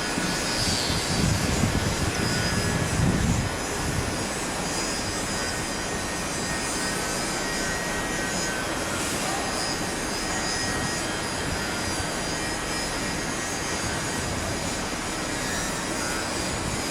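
Jet airliner engines running, a steady rushing noise, somewhat louder and deeper for the first three or four seconds before settling to an even level.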